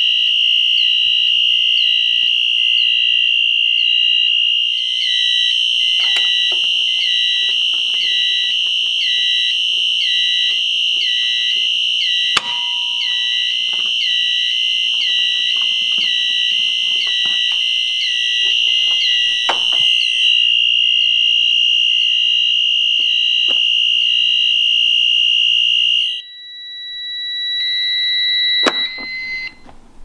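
Wheelock (Eaton) LHS3 "AGENT" horn/strobe sounding a steady continuous high-pitched alarm tone, triggered by a Halon release pull station, with a fainter even pulse beneath it. The horn cuts off abruptly about four seconds before the end, leaving a fainter steady tone that stops with a click near the end.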